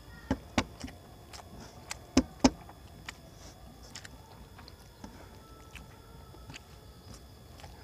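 Fingers mixing rice on a steel plate: a quick run of sharp clicks as the hand knocks against the metal in the first two and a half seconds, then light scattered ticks.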